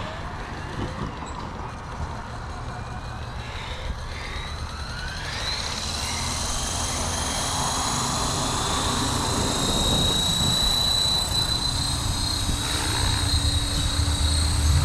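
Blade Fusion 360 electric RC helicopter spooling up: a whine that rises in pitch about four to six seconds in, then holds steady and grows louder as the rotor comes up to speed, over a low rumble.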